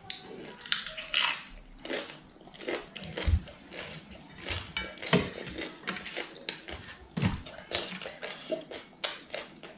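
Close-up eating sounds: chewing, and fingers mixing rice on a stainless steel plate, giving irregular light clicks and scrapes against the metal.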